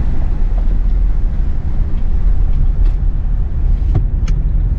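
Inside a pickup truck's cab while driving on a wet, snowy road: a steady low rumble of engine and tyre noise, with a few faint clicks.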